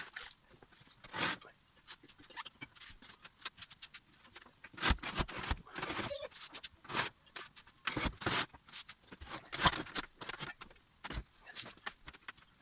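Irregular scrubbing and scraping on the mitre saw as it is cleaned, with a few harder knocks of handling.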